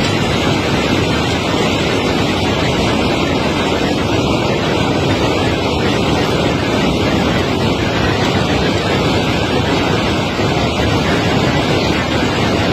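Steady, loud rushing noise with no distinct knocks or impacts.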